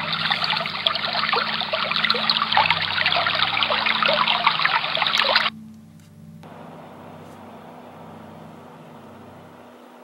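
ANFURIG HFD-600 white noise machine playing its brook sound through its speaker: a loud, crackling rush of running water. It cuts off suddenly about five and a half seconds in, and after a short gap the machine starts a much quieter, steady hiss.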